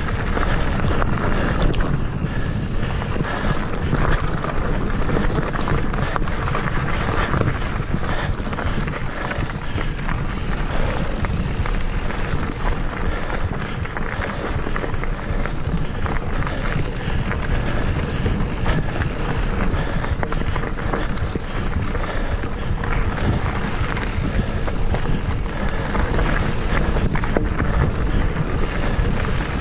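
Mountain bike ridden fast over a rough dirt singletrack, heard from a camera riding on it: tyres rolling over dirt and fallen leaves amid continual small rattles and knocks of the bike, over a heavy low rush of wind on the microphone.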